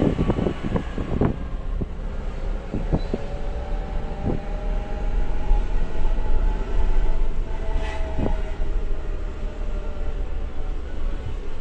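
New Suzuki Jimny's transmission whining in low range, a thin tone that rises and then falls in pitch as the vehicle speeds up and slows down, over a low rumble with a few knocks.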